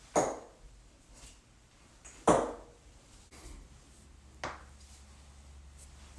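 Joints cracking: three sharp pops about two seconds apart, the second one loudest, with a few fainter clicks between them.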